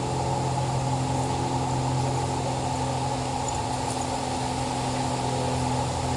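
Small engine running steadily at a constant speed, with no revving.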